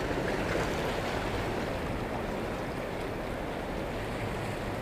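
Steady wash of small waves lapping against the boulders of a rock breakwater.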